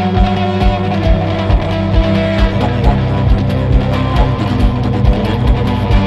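Background music: guitar over a steady beat.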